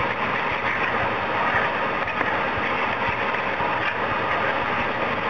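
Steady hiss of a saucepan of thickening potassium nitrate, sugar and glucose syrup mixture cooking on a gas hob, with a spoon stirring and scraping through the thick paste.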